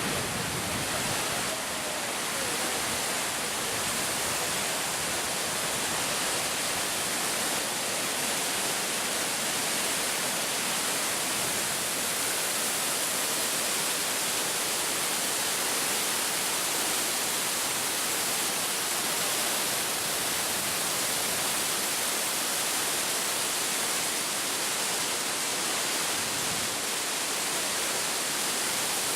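Fukiware Falls' steady rush of falling water, an even, unbroken hiss.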